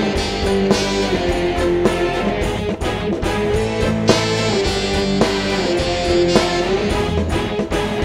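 Live dangdut koplo band playing an instrumental passage: electric guitars and keyboards over a steady drum beat, with held, gliding melody notes.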